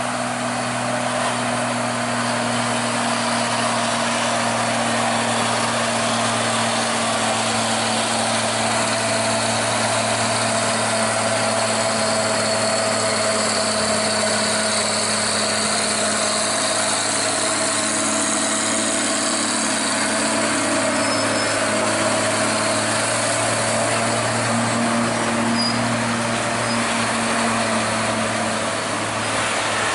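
Heavy diesel truck engines pulling a loaded truck up a steep grade, a steady low drone that holds its pitch.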